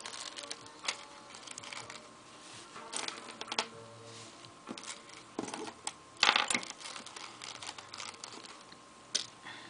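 Small clicks and rustles of jewellery-making supplies being handled on a work table: bead spacers and head pins picked up and sorted. There is a denser burst of handling a little past halfway.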